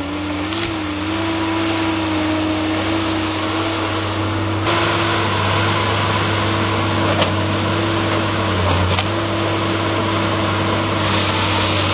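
TimberPro TB 620 feller buncher's engine and hydraulics running steadily, with a constant hum. About four and a half seconds in, the noise grows louder and harsher as the bar saw felling head works a standing tree at its base. A brief hiss comes near the end.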